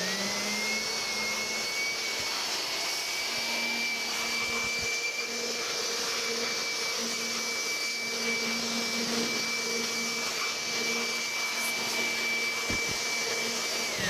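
Electric hand blower running steadily with a high motor whine, blowing dust out of an open desktop computer. Its pitch rises as it spins up at the start, and it winds down with falling pitch when switched off at the end.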